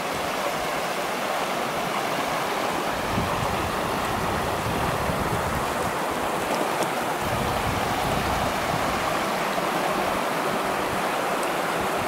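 Shallow rocky river running over stones and boulders: a steady, even rushing of water.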